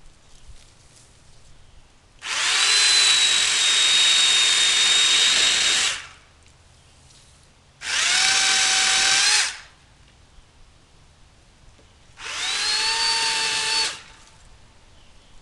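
Remington Ranger electric chainsaw cutting tree limbs in three short runs. Each run opens with a rising whine as the motor spins up, holds a steady pitch while cutting, then stops. The first run lasts about three and a half seconds, the other two under two seconds each.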